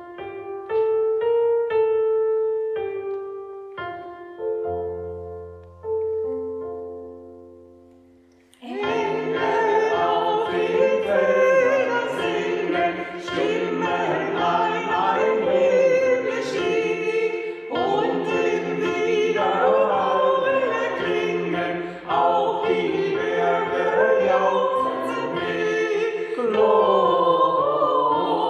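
A piano plays a short introduction of single decaying notes and chords, then a choir comes in about a third of the way through and sings with the piano accompaniment.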